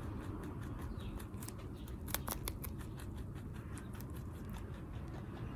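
A Netherland Dwarf rabbit chewing a fresh broccoli stalk very fast, a rapid run of crisp crunching bites at about five or six a second, loudest a little past two seconds in.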